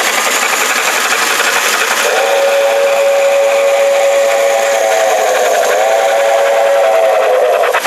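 Lionel Chessie Special 4-8-4 steam locomotive's electronic sound system: a steady steam hiss with faint even chuffing. About two seconds in, its multi-note electronic whistle starts and is held for most of the rest, dipping briefly in pitch once before stopping near the end.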